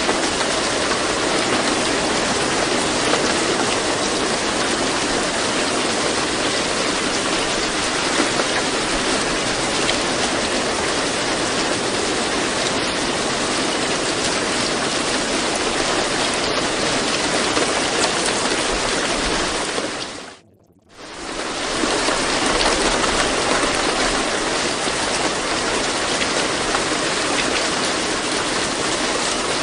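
Steady recorded rain: an even, continuous hiss with no pattern or pitch. About two-thirds of the way through it fades almost to nothing for about a second, then fades back in.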